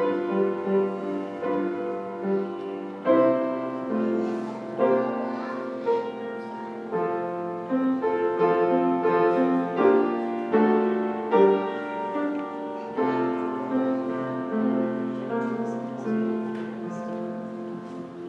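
Piano playing a slow piece in sustained chords, a new chord struck every second or two and left to ring.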